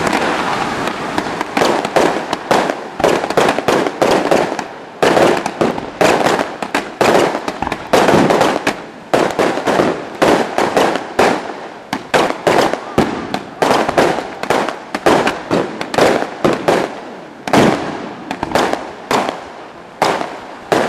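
Fireworks display going off in a dense barrage: aerial shells bursting one after another, several sharp bangs a second, from about a second and a half in.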